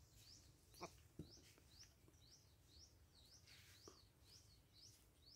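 Near silence with a faint bird chirping: a short high note repeated steadily about three times a second. Two soft taps come about a second in.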